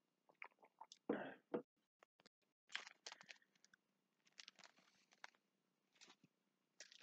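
Faint handling noises after a sip from a mug: scattered small clicks and light rustles, with one louder knock about a second in.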